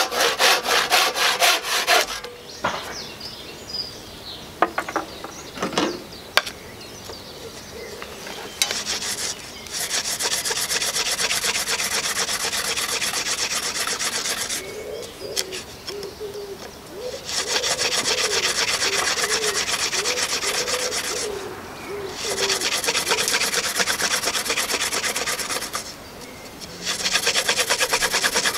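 A handsaw cutting through wood in quick, even strokes that stop about two seconds in, followed by a few sharp knocks. Then a hand-drill friction fire: a wooden spindle spun between the palms, grinding in a wooden hearth board, in spells of several seconds of steady rasping rubbing with short pauses between them.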